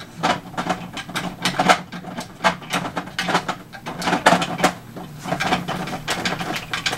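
Irregular plastic clicks and knocks as a 3D-printed scope is worked into position on top of a toy foam blaster.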